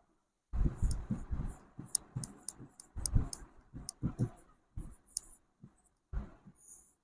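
Irregular soft knocks and bumps mixed with sharp clicks, starting about half a second in after a moment of dead silence.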